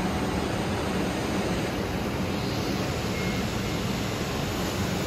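Steady workshop noise: an even hiss with a constant low hum, unchanged as TIG welding goes on in the shop.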